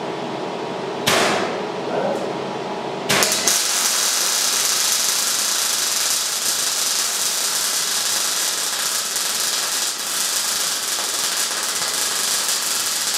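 MIG welder arc welding a steel reinforcement brace onto a Land Rover axle casing. A short burst about a second in, then the arc strikes about three seconds in and runs steadily as one continuous weld bead until near the end.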